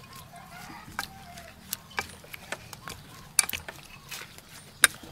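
A spoon tossing shredded green papaya salad, with irregular sharp knocks and clicks as it strikes the mixing vessel, the loudest near the end.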